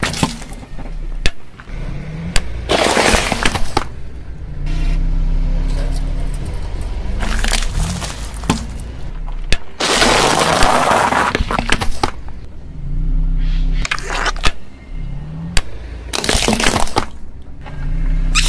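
A car tyre rolling slowly over a series of objects, crushing them with crunches and crackles in several separate bursts. About ten seconds in comes a longer burst as a bag of puffed snacks splits and its contents spray out. A low engine hum runs under it all.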